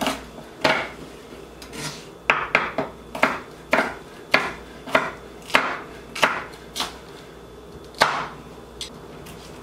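Chef's knife slicing a green bell pepper into thin strips on a wooden cutting board. The knife strikes the board in a steady series of short chops, about two a second through the middle, with a final stroke near the end.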